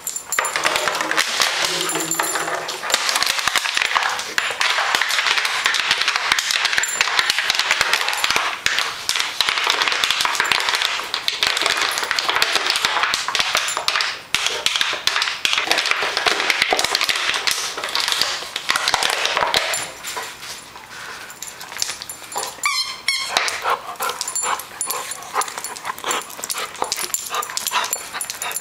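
A large dog, a German wirehaired pointer, chewing and crunching a clear plastic bottle: a dense run of loud plastic crackles lasting about twenty seconds. After that the crunching turns quieter and scattered.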